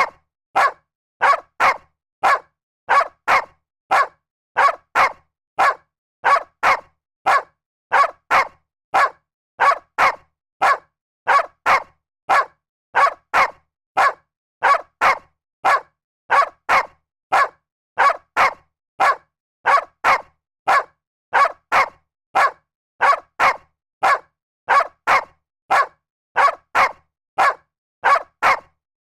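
A dog barking in a steady rhythm of double barks, two quick barks repeating about every second and a half to two seconds.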